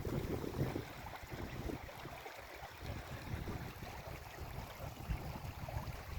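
A brook running and babbling steadily, with wind buffeting the microphone in the first second.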